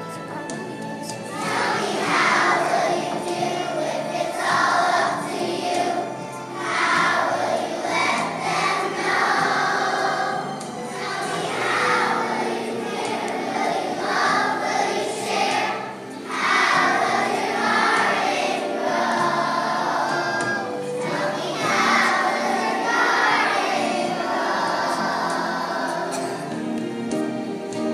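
A large choir of first- and second-grade children singing a song together over an instrumental accompaniment, in phrases of a second or two.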